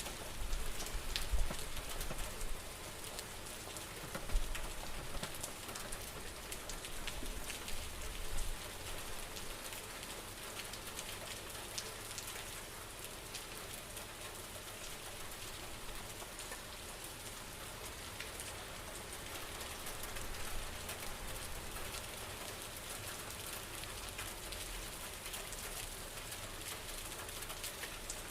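Steady rain falling, with many separate drops striking close by. Low rumbling swells come through in the first eight seconds or so, then the rain settles to an even wash.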